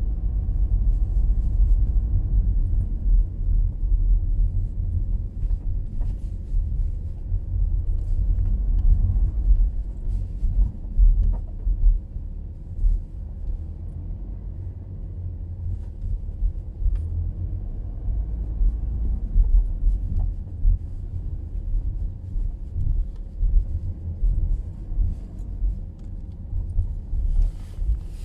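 Audi A6 (4G) front axle knocking and rattling irregularly while driving, over a steady low rumble. This is the fault the owner is recording.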